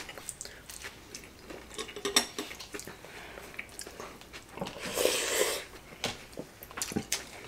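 Eating at a table: chopsticks clicking lightly against plates and food being chewed, with a louder stretch of chewing about five seconds in.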